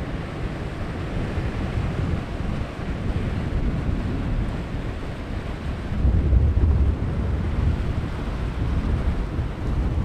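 Sea surf breaking and washing up over sand and rocks, a steady rushing wash, with wind rumbling on the microphone. The low rumble swells louder about six seconds in.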